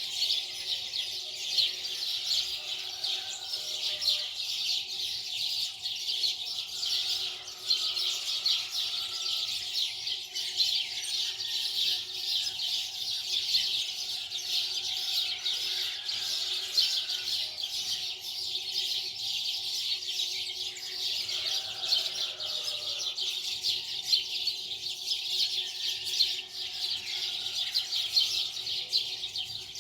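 Many small birds chirping densely and without pause, over a faint steady hum.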